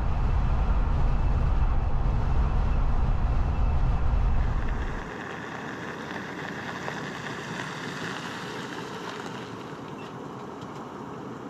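Low rumble of a moving passenger train heard from inside the carriage, cut off sharply about five seconds in. Then a 2002 Land Rover Discovery II comes up a gravel road: the hiss of its tyres on the gravel grows louder as it approaches, then eases as it pulls up.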